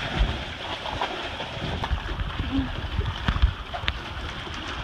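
Water sloshing and gurgling in and around a swamped boat that has just been refloated, over a steady rushing noise, with a few soft knocks and thumps.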